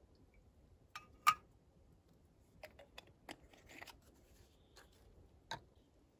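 A few sharp clicks and light taps as a small plastic fuel bottle is capped and handled after filling a spirit burner, the loudest click about a second in, with more small clicks and a brief rustle of hands a couple of seconds later.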